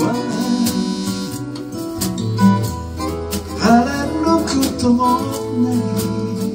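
Live acoustic band: an acoustic guitar played with a man singing over it and a hand-played cajon keeping the beat with sharp hits.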